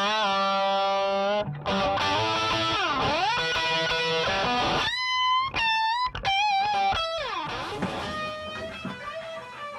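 Les Paul electric guitar played through The Valve Bimbo valve amp, a lead solo of single sustained notes with wide vibrato. About three seconds in, the pitch slides down and back up. High held notes follow, and the playing fades near the end.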